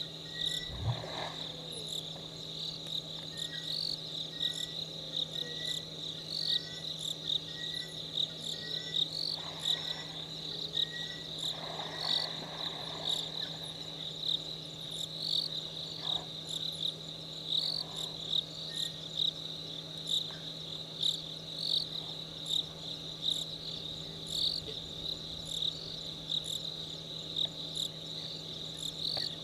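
Crickets trilling steadily in a high, continuous chirr that swells about once a second. A fainter insect chirps in a quicker rhythm during the first half.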